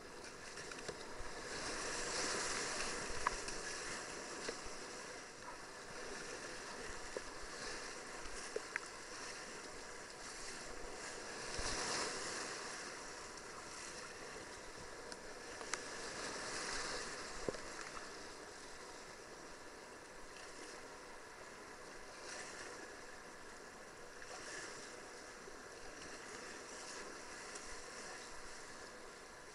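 Whitewater rapids rushing around a kayak on an artificial slalom channel, the noise surging and easing every few seconds as the boat runs the waves. A few sharp knocks stand out.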